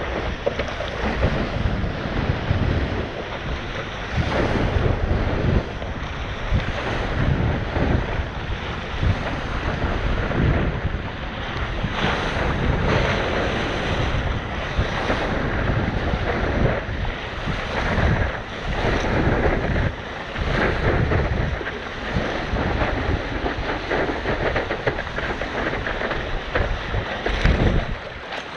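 Wind buffeting the microphone in irregular low gusts over the rushing sound of the sea.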